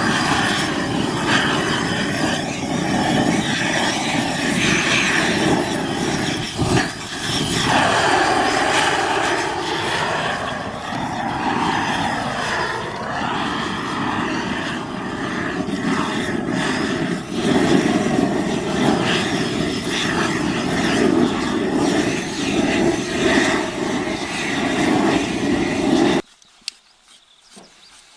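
Propane blow torch burning with a loud, steady rush of flame as it singes the fur off a marmot carcass. It stops abruptly near the end.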